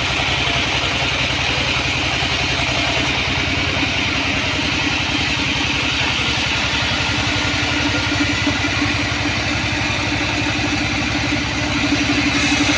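Sawmill band saw running steadily, driven by its engine, with a hiss over the top; a steady hum comes in about halfway through and grows louder.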